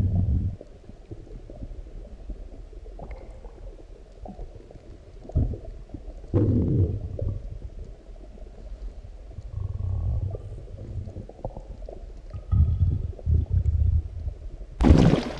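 Deep stomach growls and gurgles from a stomach full after a large meal: irregular low rumbles that come and go in clusters, with a short, louder and brighter burst right at the end.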